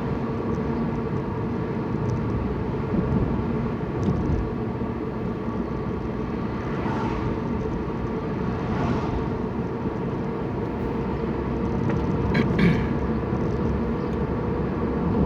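Steady engine and road noise inside a moving car in the rain, with a couple of brief clicks near the end.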